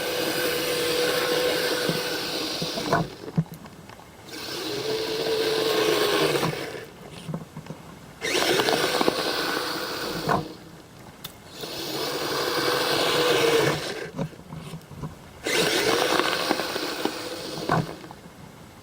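Brushless electric motors of a Kyosho Blizzard RC snowcat whining as it drives and plows snow. The whine comes in five runs of two to three seconds with short pauses between, rising in pitch as each run starts.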